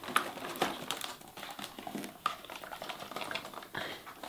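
Irregular small clicks, taps and light rustles of cardboard advent-calendar drawers and a small cosmetic product being handled and pulled out.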